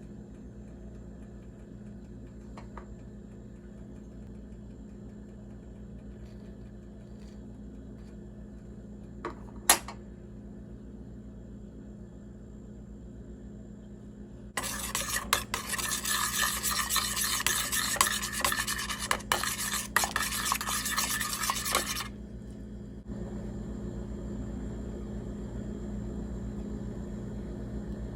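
A spoon stirring and scraping in a cooking pan for about seven seconds in the middle, loud and scratchy, then stopping abruptly. Under it runs a steady low hum, with a single sharp click a little before the stirring starts.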